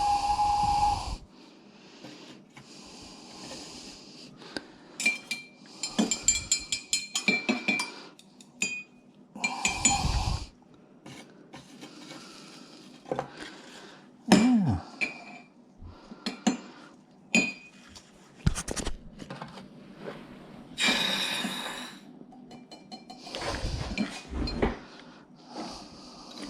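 Small metal jewelry tools and parts clinking and tapping irregularly on a bench while ring pieces are set up on a charcoal block for soldering, with a few short hissing bursts.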